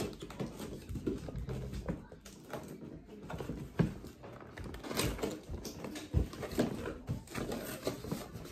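A cardboard box being opened by hand: irregular scraping, rustling and tapping of fingers working at the box edges and flaps, with a few sharper knocks.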